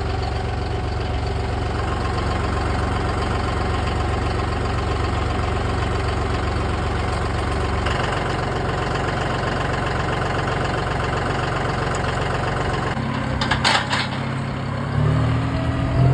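A vehicle engine idling steadily; its note changes about halfway through, and a brief high-pitched noise comes near the end.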